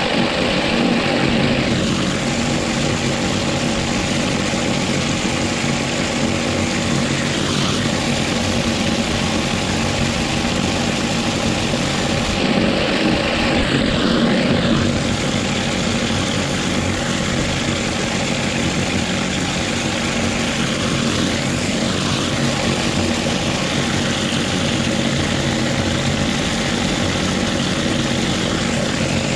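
Pressure-washer surface cleaner running over roof tiles: a steady mechanical drone under the hiss of its spinning water jets.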